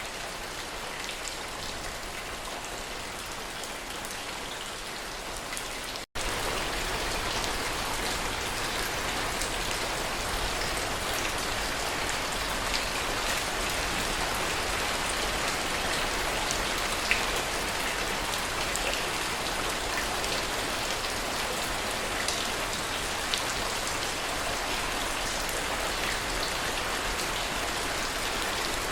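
Steady rain falling, with scattered drop ticks. About six seconds in it cuts out for an instant and comes back louder and fuller.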